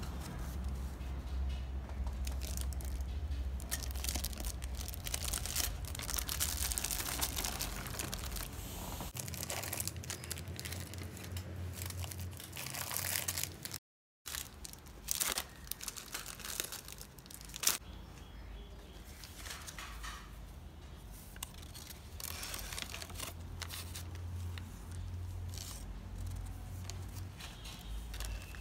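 Paper bag and candy wrappers crinkling and rustling as sweets are packed into a kraft paper treat bag, in irregular crackles. The sound breaks off briefly about halfway, and there is one sharper, louder crackle a few seconds later.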